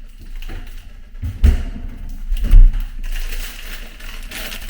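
Kitchen handling sounds: two dull, heavy thumps about a second apart, with light clatter and rustling around them.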